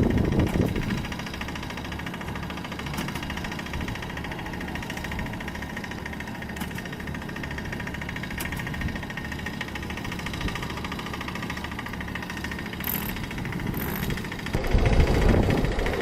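Engine of a road construction machine running steadily, growing louder and rougher near the end.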